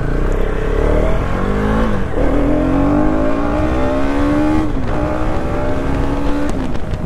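KTM Duke 250's single-cylinder engine accelerating hard through the gears. Its pitch climbs, then drops sharply at upshifts about two, five and six and a half seconds in, with wind rushing past.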